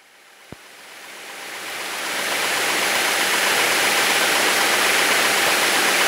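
Steady drone of a single-engine light aircraft in flight heard inside the cabin, engine, propeller and rushing air together, swelling up over the first two seconds and then holding steady.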